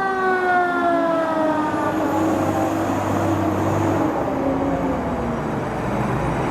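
Fire truck siren winding down: one long wail that falls slowly and steadily in pitch, with a low rumble underneath.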